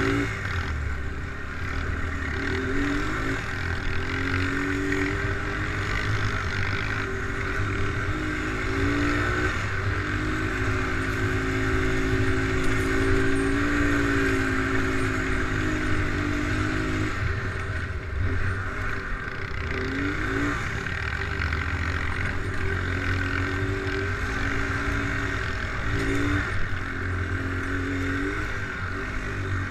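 ATV engine running under way, its note climbing as the throttle opens and then dropping back again and again through gear changes.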